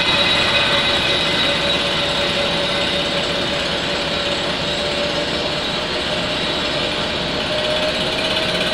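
Vertical milling machine running with its spindle at about 1,000 RPM while the table feeds the exhaust manifold along under the cutter: a steady machine hum with a faint whine that rises slightly in pitch near the end.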